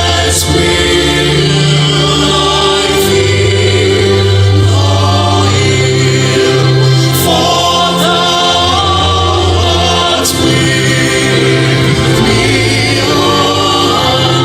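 Choir singing gospel music over sustained bass notes.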